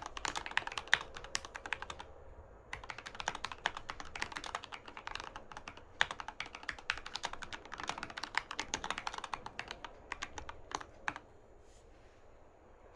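Typing on a Keychron K6 mechanical keyboard with Gateron Red linear switches and Domikey SA-profile keycaps: fast runs of key clacks, a brief pause about two seconds in, then steady typing that stops about eleven seconds in.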